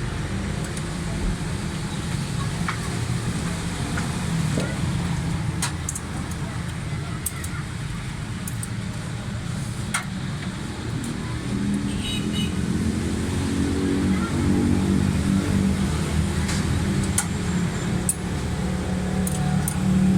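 Steady low rumble of a motor vehicle engine running, with a pitched engine note that comes in about halfway and grows louder. Light sharp clicks are scattered through it.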